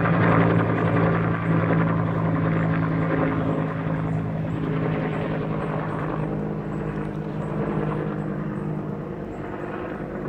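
Bell UH-1 Huey helicopter flying past, its rotor blades and engine making a steady sound that slowly fades as it moves away.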